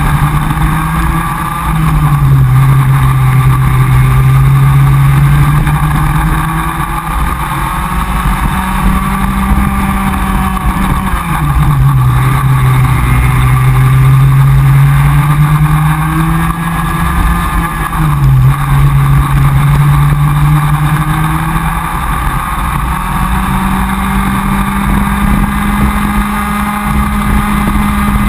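Comer cadet kart's small two-stroke engine running flat out, heard from on board, its pitch dropping sharply three times as the driver lifts off for corners and climbing again as the kart accelerates out.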